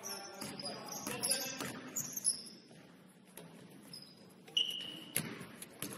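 Gym basketball game sounds: short high squeaks of sneakers on the hardwood floor, the thuds of a dribbled ball, and players' voices calling out. A short, steady high tone sounds about four and a half seconds in.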